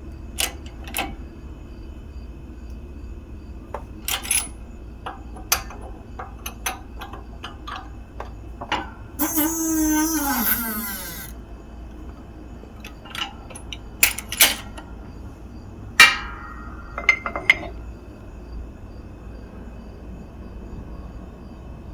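Scattered metal clinks and knocks as a socket and a new bearing are set on a motor end cover and pressed in with a shop press. A louder, harsher sound lasts about two seconds near the middle.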